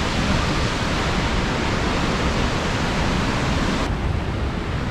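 Steady rush of a nearby waterfall or fast river. The high hiss cuts out abruptly about four seconds in, leaving a duller rush.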